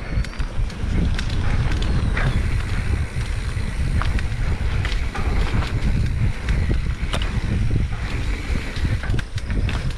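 Wind buffeting the microphone as a mountain bike rides down a dirt trail, with a steady low rumble and scattered clicks and rattles from the bike over rough ground.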